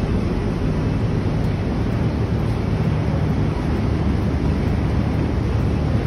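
Steady low rumble with a wind-like hiss, even throughout with no sudden sounds.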